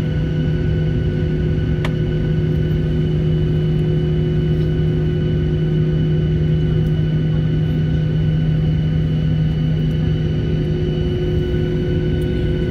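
Steady cabin noise inside an airliner: an even, loud rumble with a steady multi-toned hum from the aircraft's running machinery.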